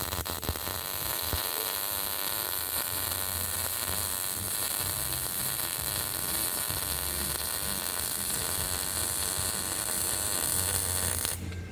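MIG welding arc running in a steady hissing buzz, which stops abruptly just before the end.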